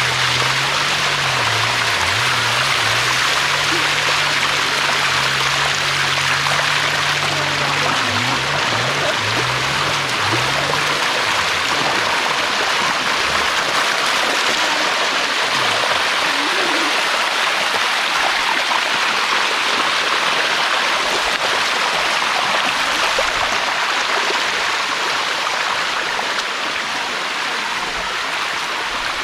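Waterfall water pouring and splashing steadily over limestone cascades, a loud even rushing. Under it for about the first ten seconds a low tone shifts in pitch in steps.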